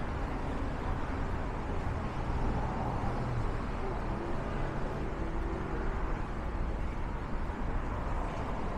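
City street ambience: steady traffic rumble, with a faint engine hum showing partway through.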